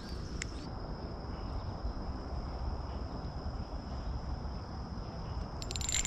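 Insects calling in one steady, unbroken high tone over a low outdoor rumble. Near the end comes a brief run of rapid clicking from a spinning reel being cranked.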